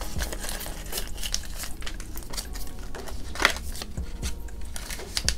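Paper banknotes rustling and crinkling as they are handled and counted, with irregular small crackles and one sharper one about three and a half seconds in.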